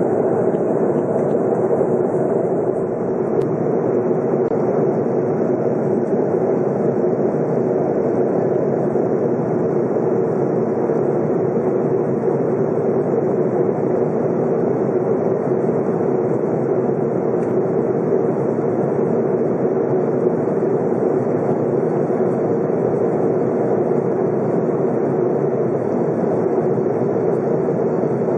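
Steady cabin noise of a jet airliner in cruise, heard from inside the cabin: an even, unbroken rush of airflow and engine noise.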